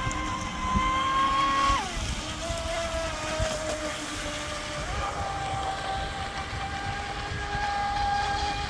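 Electric motor of a radio-controlled speedboat whining at high speed as the boat planes across the water, with the hull's spray hissing. The whine drops in pitch about two seconds in and rises again about five seconds in as the throttle and distance change, with some wind rumble on the microphone.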